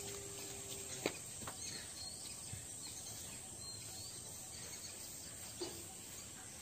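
Faint rural outdoor ambience: a steady high insect hum with a few short bird chirps, and a single sharp click about a second in.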